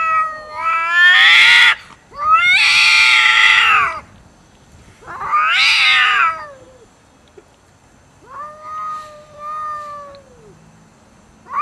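Two cats yowling at each other in an aggressive standoff over food: a series of long, drawn-out yowls, each one to two seconds long, whose pitch rises and then falls. The fourth yowl is softer than the others.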